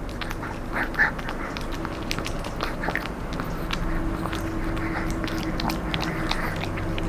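A Chihuahua chewing a home-dried, crispy duck knee-cartilage treat: irregular crunches and sharp cracks as its teeth break the hard pieces.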